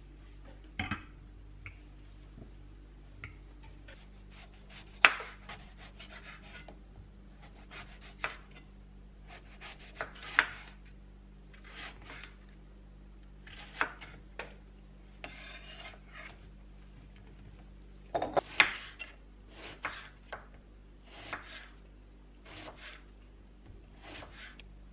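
Kitchen knife cutting eggplant into chunks on a wooden cutting board: uneven strokes every second or two, each a short slice ending in a knock of the blade on the wood.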